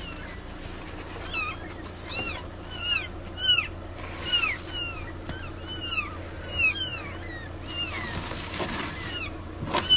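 A cat mewing over and over in short, high-pitched calls that rise and fall, one or two a second, over a steady low hum.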